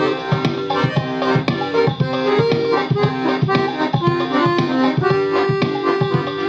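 Galanti piano accordion being played: a melody on the right-hand keyboard over a steady, rhythmic bass accompaniment.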